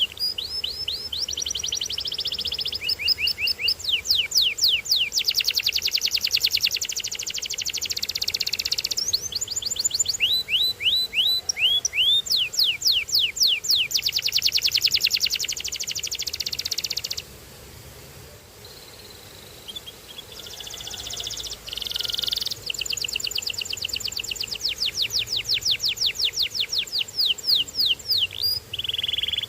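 A canary singing in long runs of rapid repeated notes, each sweeping downward, broken up by fast buzzy rolls. The song stops for about three seconds in the middle, then starts again.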